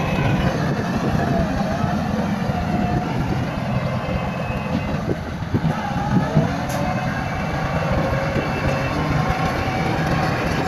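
Bulldozer's diesel engine working steadily under load, with a wavering metallic squeal from the running gear and a few knocks about halfway through.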